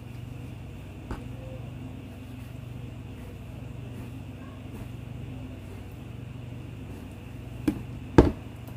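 Kitchen knife cutting abalone on a plastic cutting board: a faint tap about a second in, then two sharp knocks of the blade on the board near the end, the second the loudest. A steady low hum runs underneath.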